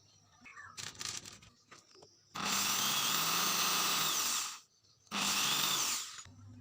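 Electric power tool running in two bursts: one of about two seconds, then after a short pause one of about a second. A brief clatter of handling noise comes just before.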